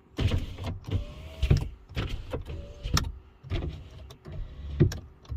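A series of sharp clicks mixed with short bursts of low electric motor hum and a faint whine, typical of a car's power-window or actuator motors running in short spurts.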